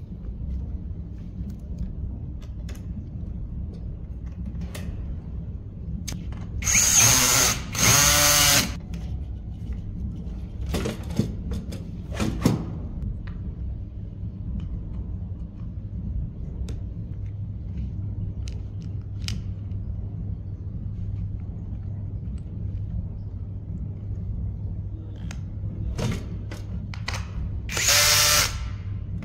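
A 16.8 V cordless drill/driver runs in short bursts of about a second each while driving screws: two close together about a quarter of the way in and another near the end. Between them come small clicks of handled metal parts over a steady low hum.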